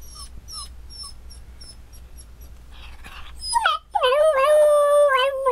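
Maltese dog giving a string of short, high, squeaky whimpers that fade away. About three and a half seconds in it breaks into a long howl that rises and then holds steady. It is a lonely howl, which the owner puts down to the dog missing his family.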